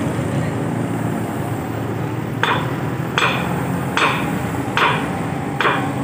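Five evenly spaced hammer blows, a little under a second apart, starting about two seconds in, over a steady low rumble.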